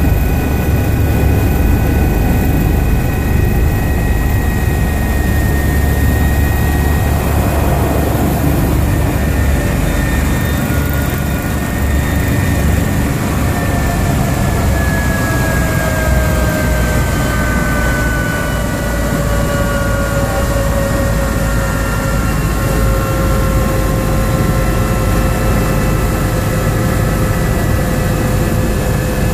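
Helicopter turbine engine and rotor heard from inside the cabin, running with a steady low rumble and whine. From about halfway through, the whine slowly falls in pitch as the engine winds down.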